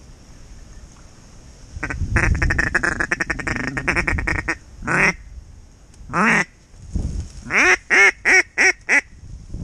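Duck call blown close to the microphone, imitating a mallard hen: a fast feeding chatter of about nine notes a second, then two single quacks, then a quick string of five quacks, calling to ducks in sight.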